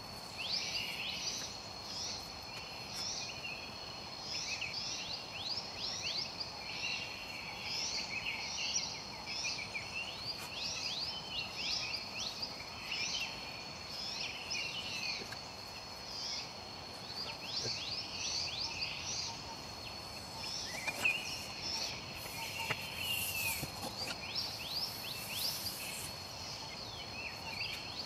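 Forest ambience: a steady high-pitched insect drone with many birds chirping over it in quick sweeping calls, several a second.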